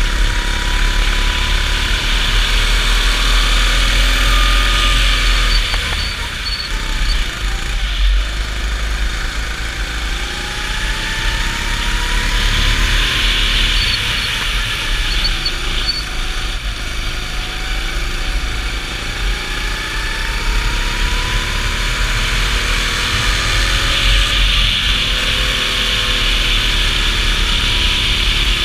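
Go-kart engine, heard from on board, its revs climbing along the straights and dropping back into the corners, over and over.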